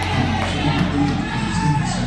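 Gospel song playing, with a held melody over a steady bass and sharp percussive ticks, and audience noise underneath.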